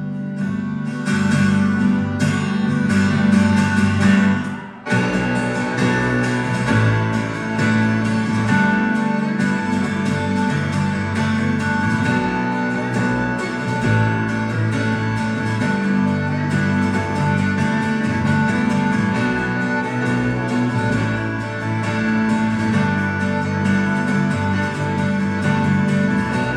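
Live band playing an instrumental passage of a pop-rock song, with guitar prominent, heard as a loud concert recording. The sound dips sharply for a moment about five seconds in, then the full band carries on.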